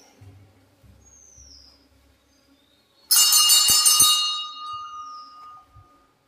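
Temple bell rung about three seconds in, with a bright metallic ring of several tones that fades away over the next couple of seconds.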